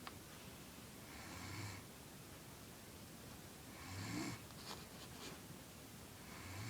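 A sleeping girl snoring, one snore about every two and a half seconds, three in all. There are a few faint clicks just after the second snore.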